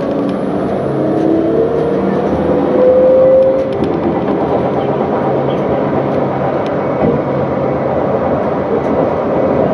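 CAF Urbos 3 light rail vehicle under way, heard from on board: steady rumble of wheels on rail, with the electric traction drive's whine climbing in pitch over the first few seconds as the tram picks up speed.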